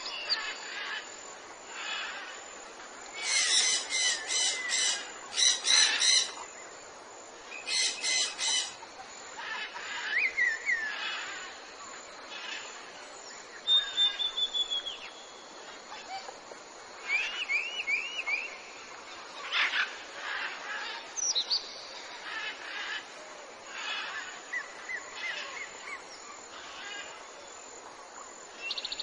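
Several wild birds calling: loud bursts of harsh, rapid chatter about three to nine seconds in, then scattered short whistles, chirps and quick trills.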